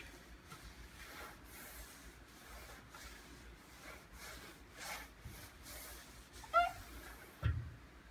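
A damp Norwex EnviroCloth wiping a greasy white vent hood: faint, repeated rubbing strokes of cloth on the hood's surface. A short squeak comes about six and a half seconds in and a low bump about a second later.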